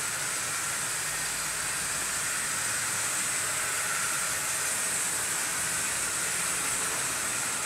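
Several 00 gauge model trains running together on the track: a steady whirr and hiss from their small electric motors and wheels on the rails.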